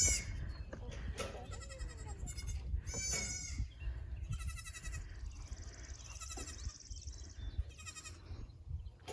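Goat kids bleating in high, thin calls, about six of them, one drawn out for a couple of seconds around the middle; the kids are newborn, a few hours old.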